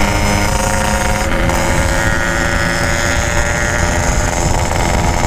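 Yamaha RX-King's two-stroke single-cylinder engine running at a steady cruise through a packing-power aftermarket muffler, with wind buffeting the microphone.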